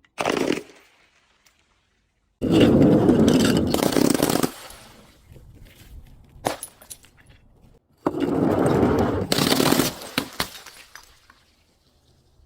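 Objects being crushed, with crunching, breaking and cracking. One brief crunch at the start, then two long crunching bouts a few seconds apart with sharp cracks and scattered snaps between them.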